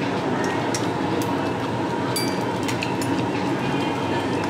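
Meat sizzling on a Korean barbecue table grill: a steady rushing noise with scattered sharp pops and crackles.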